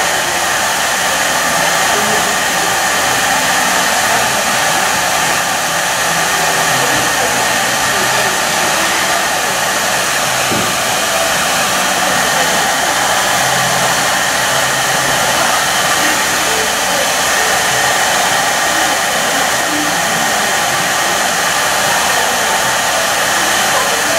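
Hair dryer blowing steadily on one setting, a constant airy rush with no change in speed.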